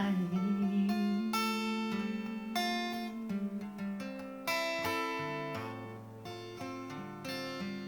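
Guitar strummed and picked in a loose, improvised way: a few fresh strums, each letting its chord ring and slowly fade.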